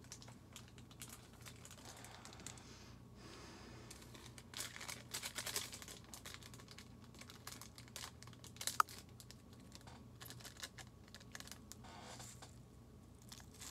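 Faint, irregular crinkling and small clicks of a plastic seasoning packet being handled and shaken over a plate of noodles, with one sharper click about nine seconds in.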